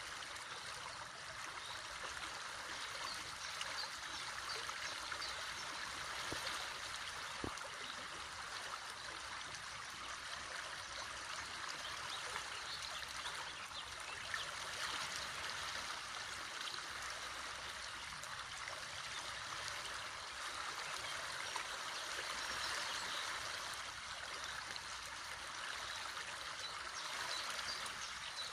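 A river running steadily over stones, a continuous rushing and babbling of water.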